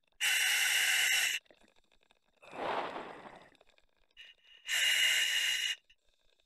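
Diver breathing on scuba through a regulator in an OTS Guardian full face mask: two inhalations, each a loud hiss with a thin whistle as the demand valve delivers air. Between them comes one exhalation, a lower, softer rush of air and bubbles through the exhaust.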